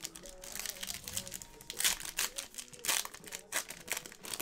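Foil wrappers of Panini Select basketball card packs crinkling as they are handled, with the loudest crinkles about two and three seconds in.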